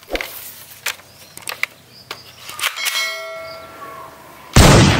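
Sharp plastic clicks from a toy Dragunov SVD sniper blaster being handled and loaded. A bell-like ding rings and dies away about three seconds in, and a loud burst of noise starts near the end.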